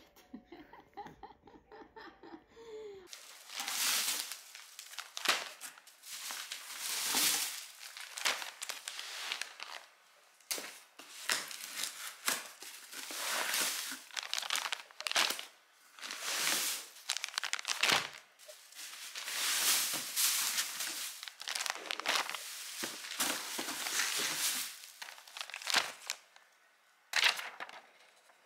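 Plastic-wrapped diaper packs and a cardboard box being handled and unpacked: irregular crinkling and rustling of plastic packaging and cardboard, starting about three seconds in.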